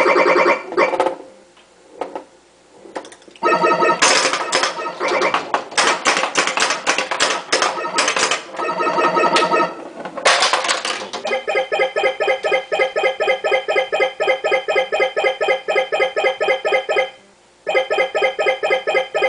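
Bally Voltan Escapes Cosmic Doom pinball machine in play: a dense clatter of mechanical clacks mixed with electronic sound effects. From about eleven seconds in comes a steady, fast run of repeated synthesized beeps that breaks off briefly near the end and then resumes.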